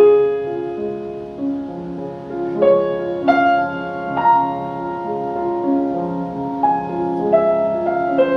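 Solo piano playing a slow, singing melody in the right hand over a flowing left-hand accompaniment, the melody brought out forte above the softer accompaniment.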